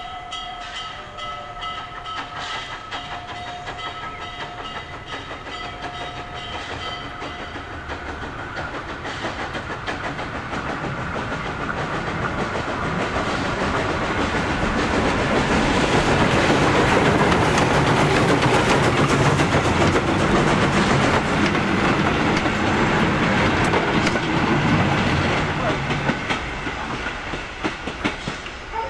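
Steam locomotive Speyerbach's whistle sounding for the first several seconds, then the engine and its coaches running past close by, growing louder to a peak about two thirds of the way through and fading as the train draws away.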